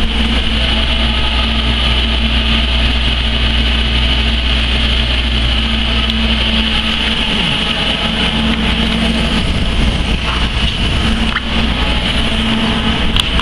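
Steady city background noise: a constant low mechanical drone with a held hum, unchanging throughout.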